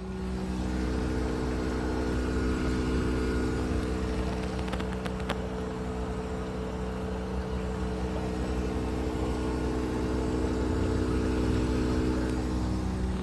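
Outdoor unit of a Mitsui split air conditioner running: a steady hum made of several fixed tones over a low rumble, with a couple of faint ticks about five seconds in. The unit is showing a PC04 error, and the owner takes this running noise for abnormal.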